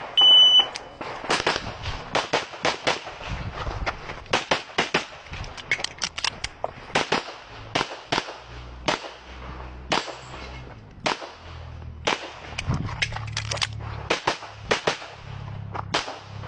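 An electronic shot timer beeps once as the stage starts. A competitor then fires a semi-automatic handgun through a practical shooting stage: sharp shots, mostly in quick pairs, with short breaks between strings, running until near the end.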